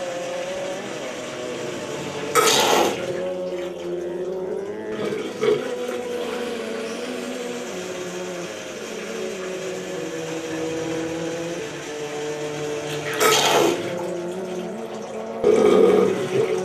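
Water in a bathroom washbasin, heard as a steady wavering hum with short, loud rushes of water about two seconds in and twice near the end.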